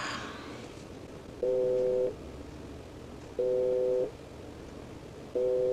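Outgoing phone call ringing over a speakerphone: three short steady two-tone beeps, about two seconds apart, while the call waits to be answered.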